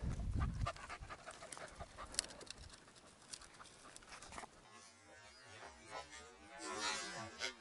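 Hunting dog panting close by, quick rhythmic breaths over the first few seconds, with a brief low rumble on the microphone at the start. A noisy rustling swell comes near the end.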